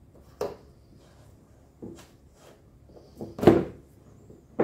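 KTM Duke 790 rider seat being pressed down onto the bike. Its base knocks against the frame four times, the loudest clunk about three and a half seconds in.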